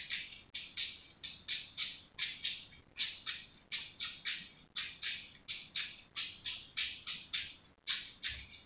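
Cucumber being shredded by hand with a small shredding tool: quick, even rasping strokes, about three or four a second.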